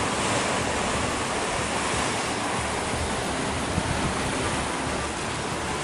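Waves breaking on the shore: a steady, even wash of surf.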